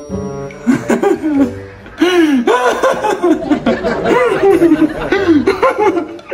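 A man chuckling: a short laugh about a second in, then a long run of quick, rising-and-falling laughs.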